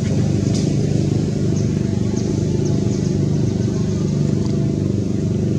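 A steady low engine drone at an even level, with a few faint short high chirps over it.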